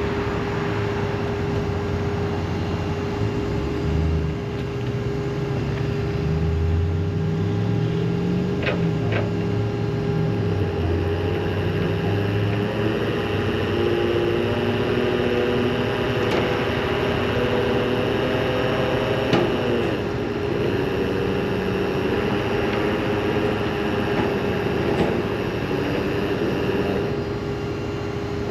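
Boom truck and its crane running: a steady mechanical hum, with a low drone that shifts up and down in pitch during the first half and a higher whine from about a third of the way in until near the end. A few light clicks fall in between.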